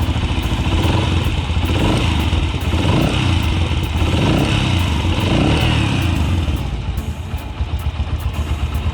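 Yamaha YBR125's single-cylinder four-stroke engine running, its pitch rising and falling a few times in the middle as it is revved. It has a new cam chain tensioner fitted, and the timing-chain rattle is gone.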